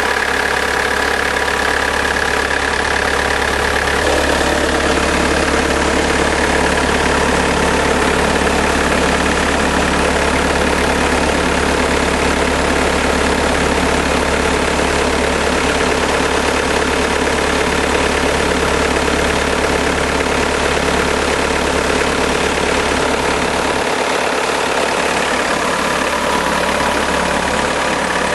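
Bobcat 753 skid steer's diesel engine idling steadily, just after being started.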